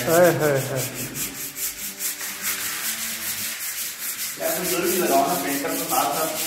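Sandpaper rubbed by hand over a plastered wall in quick back-and-forth strokes, about four a second, sanding the wall down to prepare it for a new coat of paint.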